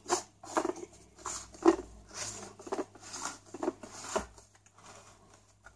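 Black plastic head of a Streamlight Vulcan flashlight being screwed by hand back onto its yellow plastic body. A run of short scraping clicks, about two or three a second, that dies away after about four seconds.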